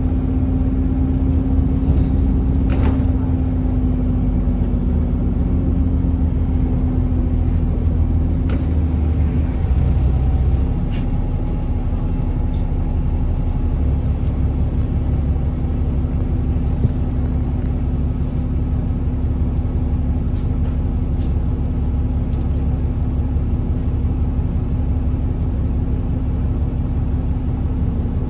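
A London double-deck bus's engine and running noise heard from on board: a steady drone with a constant hum and a heavy low rumble that shifts about ten to fourteen seconds in.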